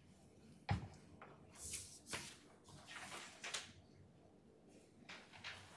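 Faint shuffling and handling noises as presenters change places at a lectern: a soft knock about a second in, then a few brief rustles and shuffles.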